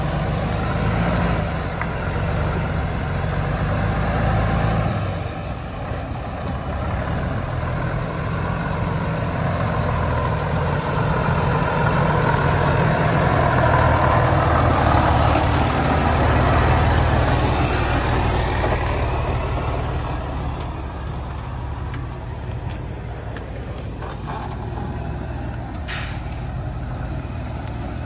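Heavy truck engine running, its note swelling louder through the middle and then easing off, with a brief hiss near the end.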